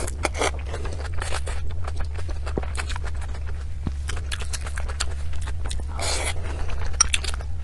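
Close-miked chewing of desserts: many small wet mouth clicks and smacks, with a louder bite about six seconds in, over a steady low hum.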